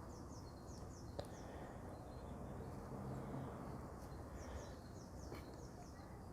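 Quiet outdoor background with a small bird's high chirps, short notes in quick pairs, one run near the start and another late on, and a single light click about a second in.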